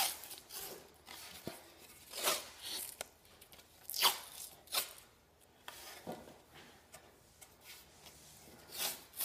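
White cloth hockey tape being pulled off the roll and wrapped around a stick blade: a handful of short ripping strokes a second or two apart, with quieter rubbing between.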